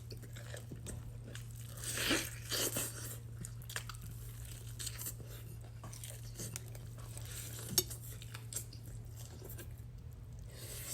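Close-miked eating of crispy fried chicken: crunchy bites and chewing in irregular bursts, loudest about two and three seconds in, over a steady low hum.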